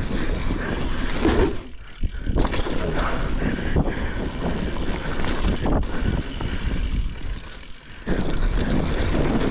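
Dirt jump bike rolling over a packed-dirt jump line: a steady rushing noise of tyres on dirt, with a few sharp knocks. The noise drops away briefly about two seconds in and again shortly before the end.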